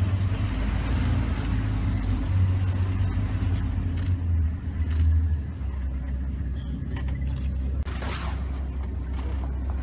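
Safari vehicle's engine running as it moves off out of the elephants' way, a steady low rumble that drops to a lower, quieter note about five and a half seconds in. A brief hiss comes about eight seconds in.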